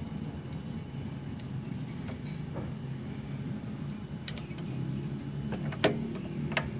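A few sharp metallic clicks from handling a MIG welder's wire feeder while 1 mm welding wire is threaded through its drive rolls and guides. They fall in the second half, over a steady low hum.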